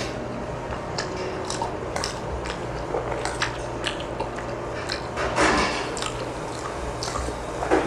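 Close-miked eating sounds: wet chewing and mouth noise with light clicks of utensils on dishes. There is a louder burst of wet mouth noise about five seconds in.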